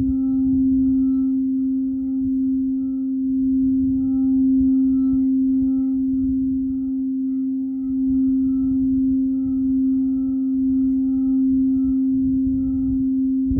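A singing bowl sounding one long steady tone with fainter higher overtones, swelling and easing in loudness every couple of seconds, with no fresh strikes.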